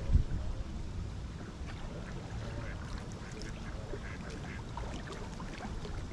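A flock of waterfowl calling: scattered short quacks and honks from ducks and swans over a steady low rumble, with a loud thump just at the start.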